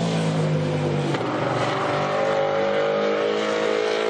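MotoGP racing motorcycle's four-cylinder engine, its note falling as it slows over the first second, then climbing steadily as it accelerates again.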